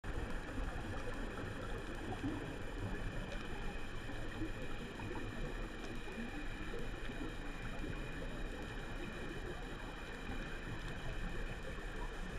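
Underwater ambience picked up by a diver's camera: a steady, muffled rush of water with a few thin, steady high tones and faint scattered ticks over it.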